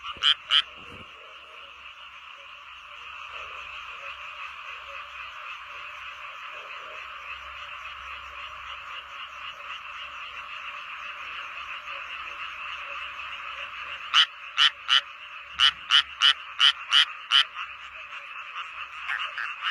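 A chorus of frogs calling steadily. A closer frog gives loud, evenly spaced croaks, about three a second: a couple right at the start, then a run of about a dozen near the end.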